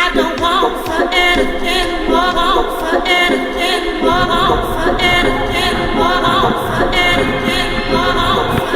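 Background song with layered sung vocals, the voices wavering with vibrato; about four seconds in, a bass line and beat come in under the voices.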